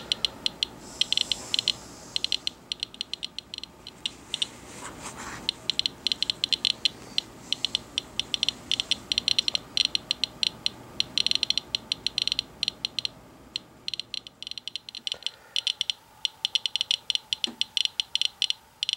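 Radiation Alert Inspector Geiger counter clicking at irregular random intervals, several clicks a second, each click short and sharp. It is counting radiation from a wipe taken in the rain off a car hood, which the uploader attributes to radon progeny washed out of the air by rain.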